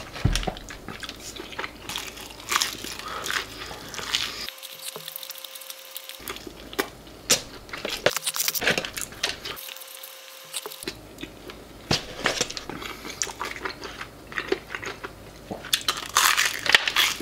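Close-up eating of crispy fried chicken: irregular crunches as the breaded skin is bitten, with chewing in between.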